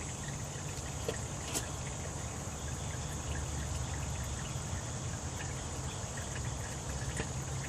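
Hot engine oil draining in a steady stream from a BMW M54 engine's oil pan into a catch pan, over the steady chirring of crickets.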